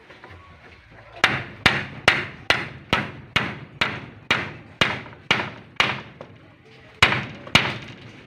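Hammer blows struck steadily, about two a second, eleven in a row, then a short pause and two more near the end, each a sharp ringing knock.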